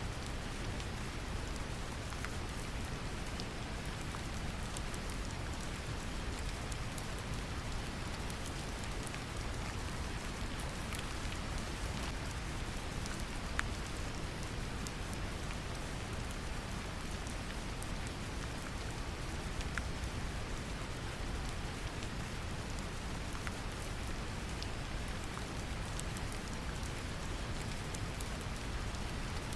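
Steady brown noise, a deep even hiss, mixed with gentle rain pattering, with scattered small drop ticks.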